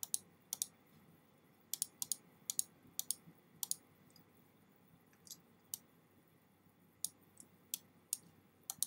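Computer mouse clicking: about twenty sharp, scattered clicks, some in quick pairs like double-clicks, over faint room hiss. They come thickest in the first four seconds and sparser after.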